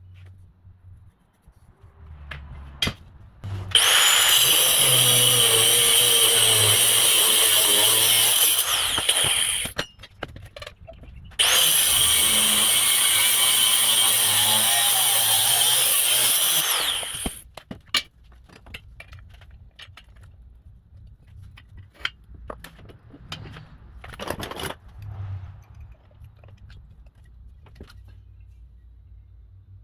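A power tool runs in two steady, high-pitched bursts of about six seconds each, with scattered clicks and knocks between and afterwards.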